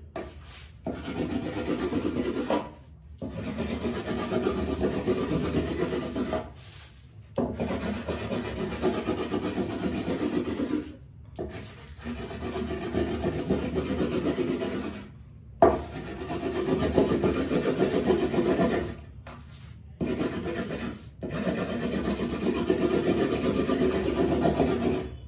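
Paperweight rubbed hard back and forth over brown kite paper on a wooden table, burnishing a shiny star pattern ('kaudi') into the paper. It comes as runs of scraping strokes a few seconds long with short pauses between them, and a sharp knock about halfway through.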